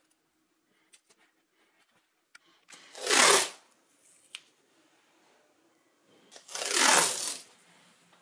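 Masking tape pulled off its roll in two long rasping rips about a second each, one about three seconds in and one about seven seconds in. Faint ticks and rustles of handling between.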